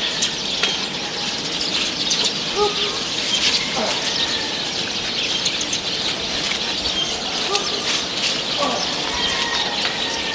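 Birds chirping over a steady hiss, with scattered light clicks.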